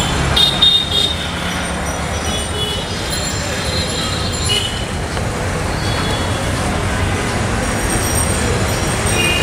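Street traffic noise: a steady sound of passing vehicles, with short high horn toots, the loudest about half a second in and another near the middle.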